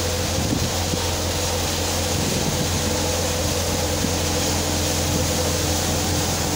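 Multicrop thresher (mini combine) running steadily while threshing soybean plants fed into its chute: a continuous loud mechanical drone with a deep, even hum and a rushing noise over it.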